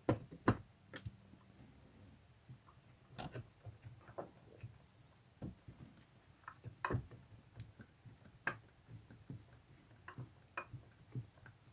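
Irregular sharp clicks and light knocks of small hardware being handled while a curtain-rod bracket is fitted, about a dozen spread unevenly, the loudest near the start and about seven seconds in.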